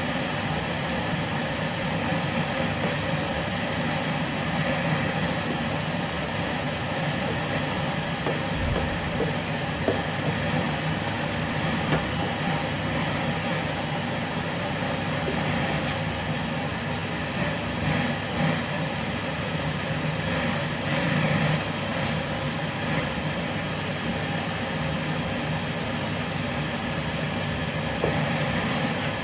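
Vacuum cleaner motor running steadily under heavy suction: a constant rushing hum with a thin high whine over it.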